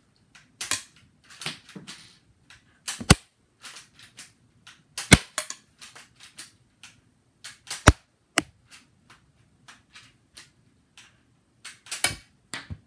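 Homemade Lego pump-action shotgun being fired and pumped again and again: a string of sharp plastic clicks and snaps, with several louder cracks a few seconds apart.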